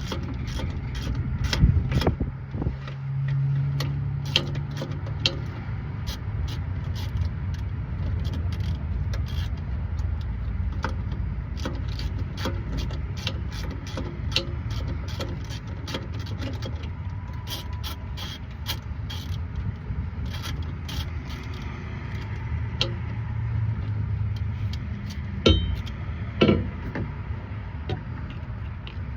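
Rapid metallic clicking from a ratchet wrench working on the air compressor's starter bolts, with a couple of louder knocks of tools on metal near the end, over a steady low rumble.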